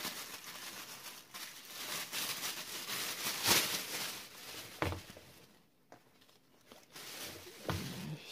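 Thin plastic carrier bag rustling and crinkling in uneven bursts as a pair of sneakers is put into it, with a brief lull about two-thirds of the way through.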